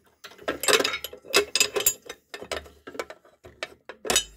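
Metal clicking and clattering from handling a coin-op vending machine's cash-drawer lock and its metal parts: an irregular run of rattles and clicks, ending in one sharper clank.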